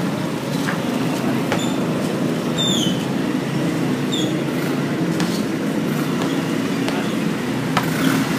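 A steady low engine-like hum, with a few sharp knocks of a basketball bouncing on the concrete court and a couple of brief high chirps.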